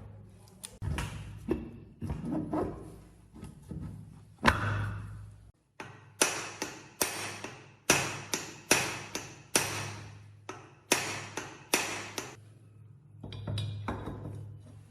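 A hammer striking metal: a few scattered knocks, then a run of about fifteen sharp, ringing strikes, two to three a second, over a steady low hum.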